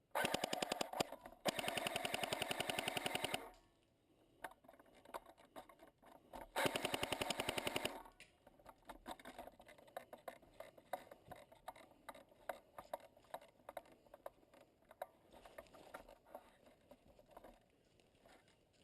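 Airsoft rifle firing on full auto in three bursts, each a rapid, even run of shots, the middle one about two seconds long; afterwards, scattered fainter clicks.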